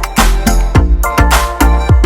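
Background music with a steady beat: a heavy kick drum and deep bass about twice a second under sustained pitched tones.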